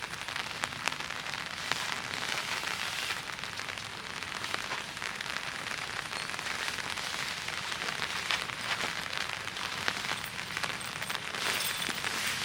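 Rain pattering steadily on a surface: a dense hiss of many small drops with scattered sharper taps.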